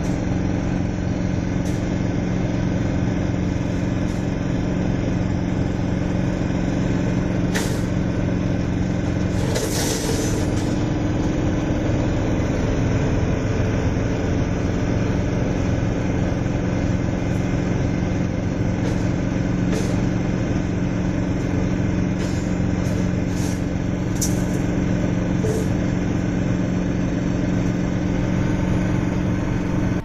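Small single-cylinder diesel engine running steadily, driving a rebar-processing machine. Its pitch shifts slightly about ten seconds in, along with a brief hiss. A few sharp clicks come through in the second half.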